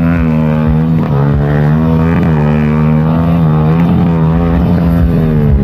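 Sport motorcycle engine held at high revs, its pitch dipping and recovering every second or so as the rear wheel spins in loose dirt.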